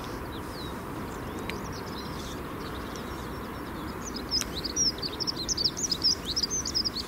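A small songbird singing outdoors: scattered high chirps at first, then from about four seconds in a fast, busy run of quick high chirps. Under it is a steady low rumble of background noise.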